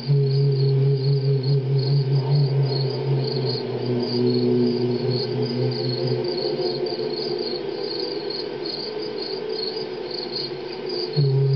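Crickets chirping in a steady stream of rapid high pulses, over a low steady hum that drops out about six seconds in and returns near the end.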